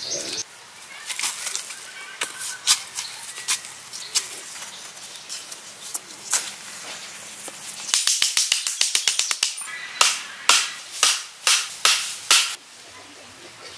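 Loose soil being scraped and dug with a wooden stick, then wooden poles knocked into the ground: a quick run of light taps, then about six heavier strikes roughly half a second apart.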